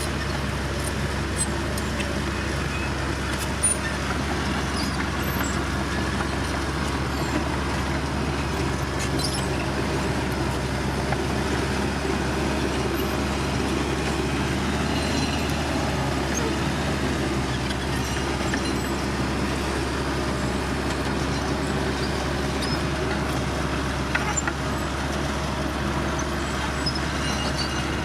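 Diesel engine of heavy road-construction machinery running steadily at an even speed, with a few faint clicks.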